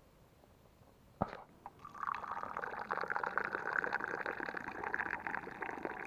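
Tea poured from a teapot in a steady stream into a glass, from about two seconds in until just after the end, preceded by a single sharp knock about a second in.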